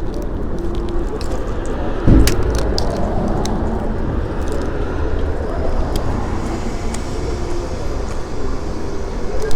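Steady outdoor rumble, with scattered small clicks and a loud thump about two seconds in.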